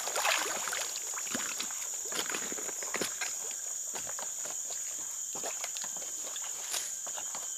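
A steady high-pitched drone of insects in swamp forest, with scattered light footsteps and knocks of a person walking along a fallen log over water, and a short rustle at the start.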